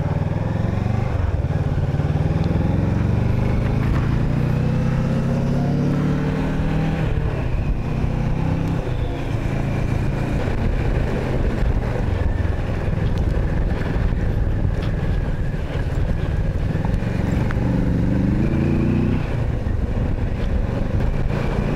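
Kawasaki Versys 650's parallel-twin engine accelerating on the move, rising in pitch for several seconds and dropping at a gear change about seven seconds in, then rising and shifting again near the end, over a steady rush of wind and road noise.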